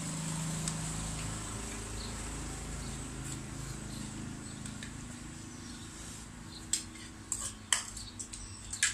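Spoons clicking and scraping against bowls and a serving plate over a steady low hum, with several sharp clinks in the last two seconds.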